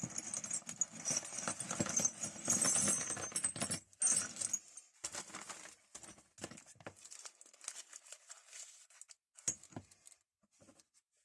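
A parcel's packaging being cut open and rustled for about four seconds, then scattered clinks and clacks of small metal tools being handled, fading out near the end.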